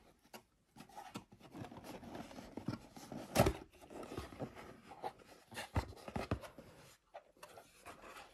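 Cardboard box being handled and opened: the lid sliding off and the flaps lifting, with scraping and rustling and a sharp knock about three and a half seconds in.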